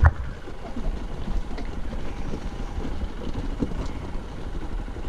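Hero XPulse 200 dirt bike's single-cylinder engine running at low speed over a rocky trail, mixed with wind on the microphone and the rattle of the bike over stones. One sharp thump right at the start, as the bike hits a bump.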